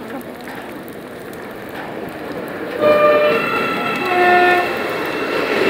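Hyundai Rotem HRCS2 electric train approaching and running past along the platform, its noise growing louder. About three seconds in it sounds its horn for about two seconds, two notes one after the other, the second lower.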